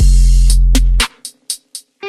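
Background music with a steady beat: deep bass under ticking percussion, about four ticks a second. About a second in the bass cuts out, leaving only a few ticks.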